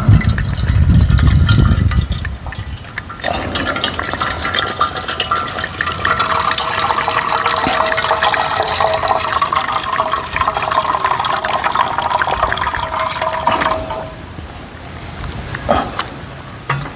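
Hot water pouring from a thermos flask into a small metal tin in a steady stream, with a held ringing tone as the tin fills. It stops abruptly a few seconds before the end. A low rumble is heard in the first two seconds.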